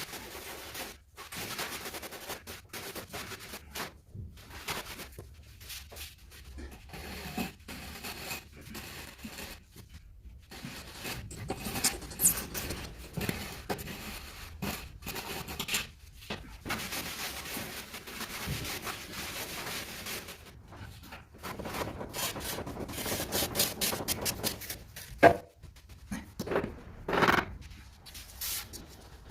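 Trowel scraping and smoothing cement mortar on a floor in irregular strokes, with a sharp knock near the end.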